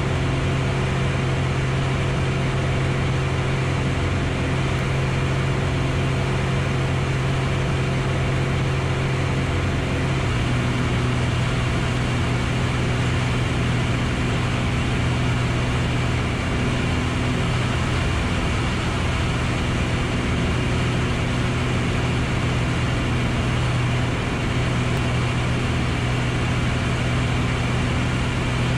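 Piper Arrow's single piston engine and propeller droning steadily in flight, heard inside the cabin. The engine note drops slightly about ten seconds in.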